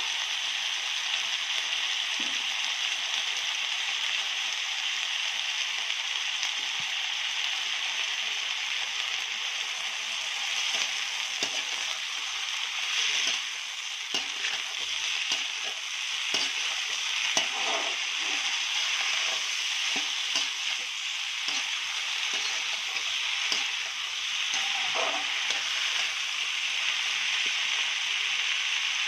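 Silkworm pupae sizzling as they stir-fry in a wok, a steady hiss, with the spatula scraping and tapping against the pan now and then.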